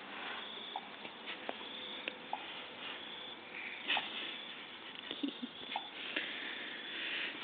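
Hands handling a dissected cane toad: scattered small clicks over a steady hiss, with patches of breathy noise now and then.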